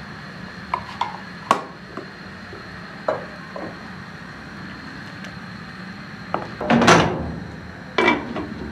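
Light clicks and taps of a plastic measuring spoon and cup over a clay cooking pot. Near the end comes a louder clatter and then a knock as a glass lid is set down onto the clay pot's rim.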